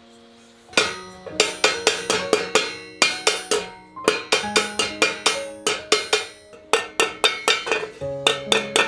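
Hand hammer striking a copper teapot body held on a metal stake: quick, ringing metallic taps about four a second, starting about a second in. Soft background music with held notes runs underneath.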